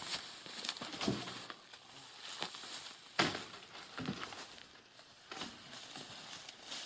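Footsteps and rustling through dry grass and brush, with scattered sharp cracks and knocks from twigs and wood being handled. The loudest is a single knock about three seconds in.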